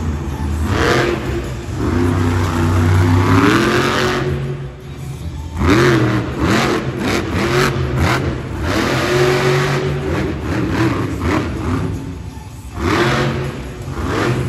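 Race Ace monster truck engine revving hard, its pitch rising and falling again and again as the truck drives and jumps. A quick run of sharp cracks and bangs comes in the middle.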